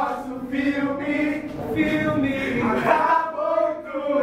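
A group of voices singing together, with long held notes.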